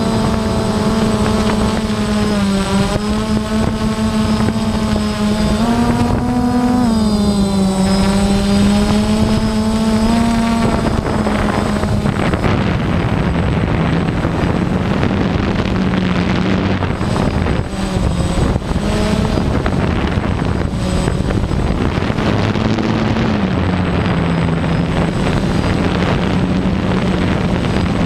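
DJI Phantom quadcopter's motors and propellers buzzing close to the microphone, a steady hum whose pitch wavers up and down as the drone adjusts its flight. From about halfway the tone is partly covered by a rushing air noise.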